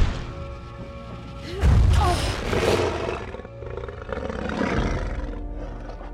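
A dragon's roar over sustained orchestral film music: a loud roar about a second and a half in that falls in pitch, then a second, weaker growl around four to five seconds in.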